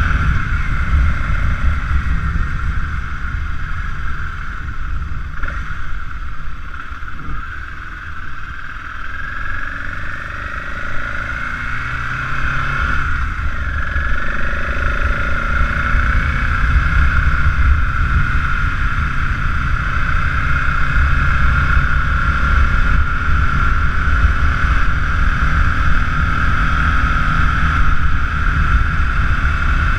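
Motorcycle riding at road speed: the engine runs under steady wind rumble on the camera's microphone. The engine note dips and rises again about a third of the way through.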